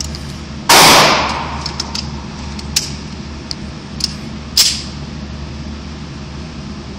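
A single close pistol shot less than a second in, very loud and ringing off the walls of an indoor range as it dies away, then a few light clicks and a shorter, sharp crack about four and a half seconds in. A steady low hum sits underneath.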